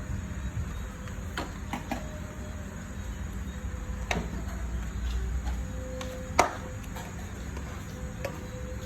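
Scattered knocks and clicks of hard objects being handled, about six in all, the loudest about six and a half seconds in, over a steady low rumble.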